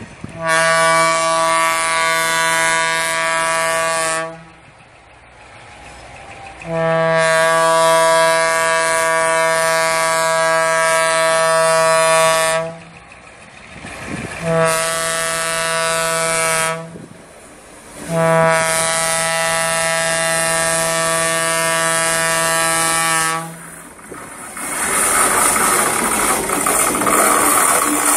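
Diesel locomotive air horn sounding four blasts, long, long, short, long, the pattern used as a level-crossing warning. Near the end the horn stops and the locomotive's engine and wheels on the rails grow louder as it draws near.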